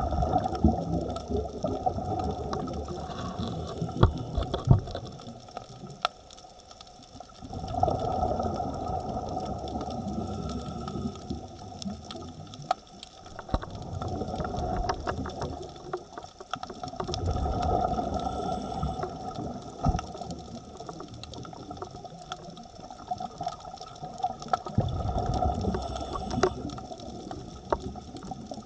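Scuba regulator breathing heard underwater: rumbling bursts of exhaled bubbles lasting a few seconds each, with quieter gaps between them, over a faint steady whine and scattered clicks.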